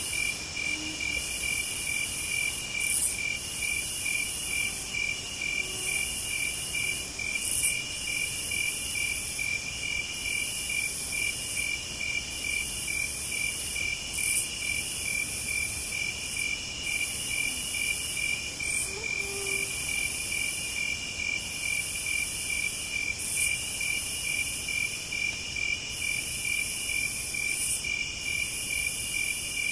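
Night insects chirping steadily: a regular pulse about twice a second, with a higher, hissing chirr in long phrases that break off every few seconds.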